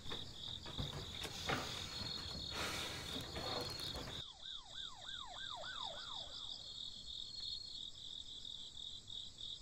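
Night crickets chirping steadily, a rapid pulsed trill. In the first few seconds there are a few scuffing footsteps. Later a short run of about six arching whistled notes sounds over the crickets.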